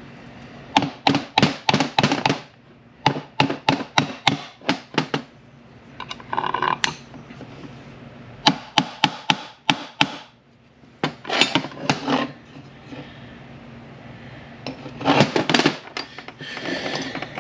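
Hammer tapping on steel transmission parts in several quick runs of light blows, about six to eight taps per run with short pauses between, as a shift rail and roll pin in an M5R1/M5R2 shift tower are driven toward alignment.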